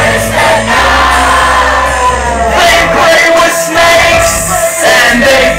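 Loud live horrorcore rap music through a club PA: a sung and shouted vocal over a heavy bass beat, the deep bass dropping out about halfway through and coming back near the end.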